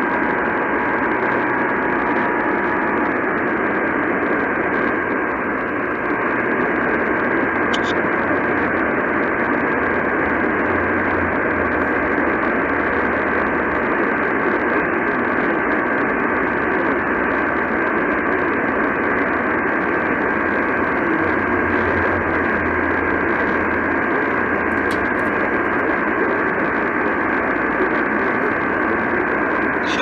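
Portable radio on a weak AM signal: steady static hiss with a constant high whistle running through it. A faint two-note tone sits under the hiss and stops about three seconds in.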